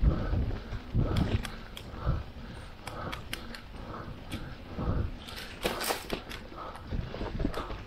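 Footsteps of a person walking, about one step a second, with light clicks and rustling between the steps.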